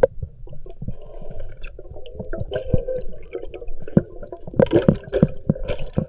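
Underwater sound picked up by a spearfisher's camera: water bubbling and gurgling, with irregular clicks and knocks, the strongest in a cluster about four to five seconds in.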